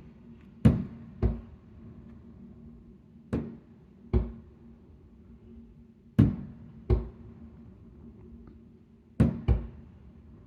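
Fireworks shells bursting with sharp booms, heard from indoors, coming in close pairs about every three seconds, eight booms in all. A steady low hum runs underneath.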